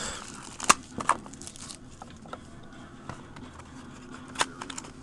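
Hands handling a cardboard trading card pack box: a few sharp light clicks and taps, the clearest less than a second in and again near the end, over faint background hum.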